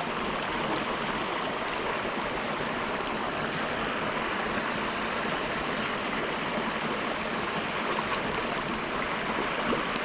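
A small creek's water flowing steadily, a constant even rush.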